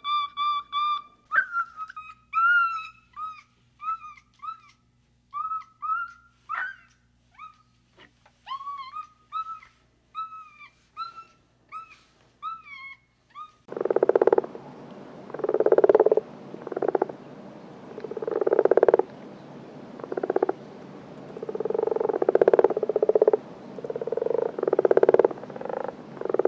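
For about the first 13 seconds, a rapid run of short, high, squeaky calls from chimpanzees, each rising and falling in pitch. After that comes a frog croaking loudly, about a dozen rattling croaks at roughly one a second.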